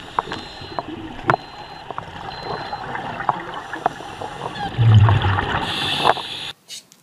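Underwater sound through a diver's camera: steady water hiss with scattered sharp clicks, a low burst of scuba exhaust bubbles about five seconds in, then the hiss of the regulator on an inhale. It cuts off abruptly shortly before the end.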